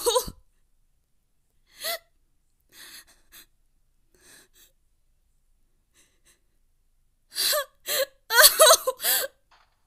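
A girl's voice crying: a few short, quiet gasping sobs in the first half, then a louder run of wavering sobs about seven to nine seconds in.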